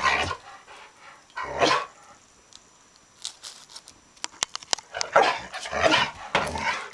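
American Staffordshire terrier mix barking in short bursts: one bark at the start, another about a second and a half in, then a quick run of barks in the last two seconds. A few sharp clicks come just before the run.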